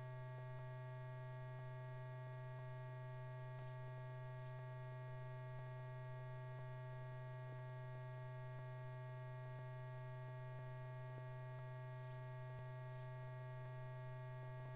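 Steady electrical mains hum on an old film soundtrack: a low drone with a row of fainter steady tones above it, unchanging throughout.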